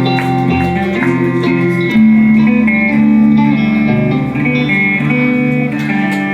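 Guitars playing ringing, sustained chords in live band music, with no singing.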